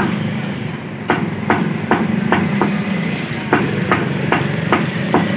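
Meat cleaver chopping raw chicken pieces, bone and all, on a wooden chopping block: a quick, even run of sharp chops, about two or three a second, starting about a second in.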